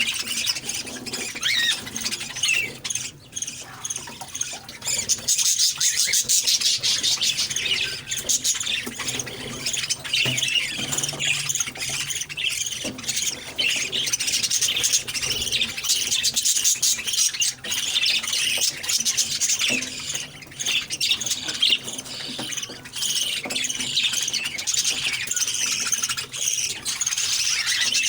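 Several pet Australian parrots chirping, squeaking and chattering continuously, many calls overlapping.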